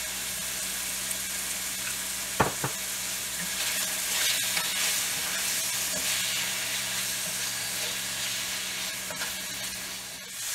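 Beef sirloin pieces sizzling in olive oil in a cast iron skillet, stirred and pushed around the pan with a wooden spatula. A couple of sharp knocks about two and a half seconds in.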